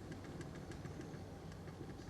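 UAZ Patriot engine idling, a steady low rumble with faint irregular ticks over it.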